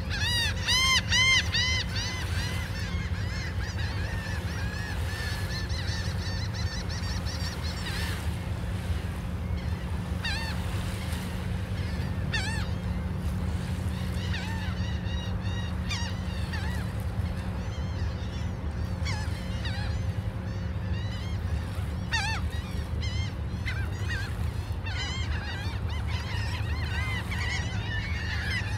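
Gulls calling, a quick run of loud arching calls in the first couple of seconds and then scattered calls throughout, over a steady low rumble.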